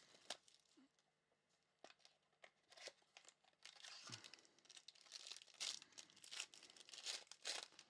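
Faint crinkling and tearing of plastic wrapping as a trading-card box's cellophane and a sealed card pack are torn and handled. It comes as scattered crackles that grow denser over the second half.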